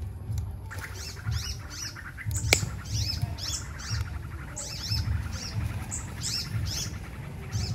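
Small birds chirping, short high falling chirps repeated two or three times a second, over a low rumble that comes and goes. A single sharp click sounds about two and a half seconds in.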